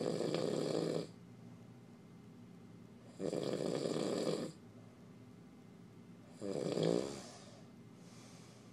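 A man snoring in his sleep: three loud snores about three seconds apart, each lasting around a second, with a fainter breath near the end.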